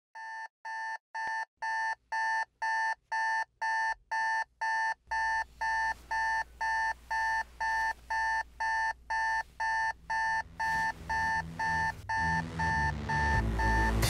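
Electronic alarm clock beeping in a steady rhythm of short, even beeps, about two a second, fading in over the first couple of seconds. Low music swells in underneath near the end.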